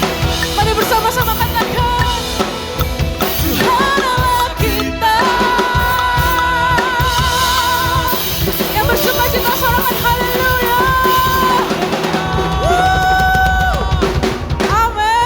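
Drum kit (kick, snare and rimshots) played along to a backing song, while a singer holds long, wavering notes.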